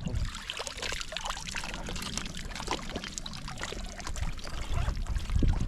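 Water splashing and trickling in many small, irregular splashes, like water running and dripping back into the lake.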